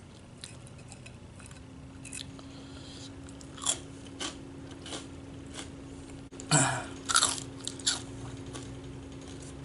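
A person chewing crunchy fried food close to the microphone: irregular crunches and mouth sounds, the loudest cluster about two-thirds of the way in.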